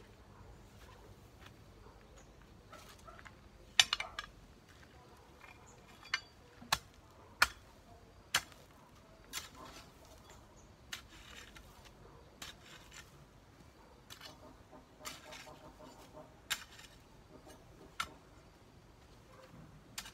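A long wooden-handled garden tool worked through cut grass and earth: sharp, irregular clicks and knocks with stretches of scraping and rustling, the loudest strikes about four and seven seconds in.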